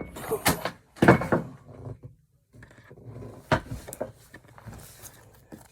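A few short knocks and clatters of things being handled, with a brief dead silence a little after two seconds in.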